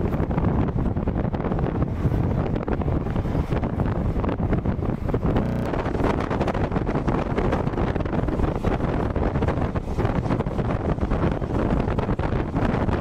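Passenger train running at speed, with steady rumbling and rushing noise, and wind buffeting the microphone.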